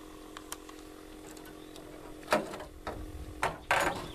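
Handling noise from unhooking a largemouth bass in a small aluminium boat: a few short knocks and rustles, the loudest near the end, over a steady low hum.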